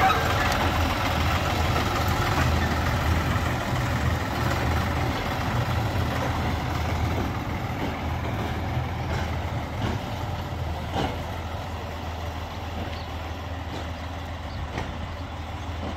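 Engine of a steam-outline miniature railway locomotive running with a steady low hum as it moves slowly away onto a turntable, gradually getting quieter.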